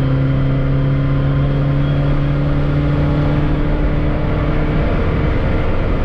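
Supercharged Chevette's four-cylinder engine droning steadily at cruise, heard inside the cabin over road noise; the engine tone drops away a little before the end.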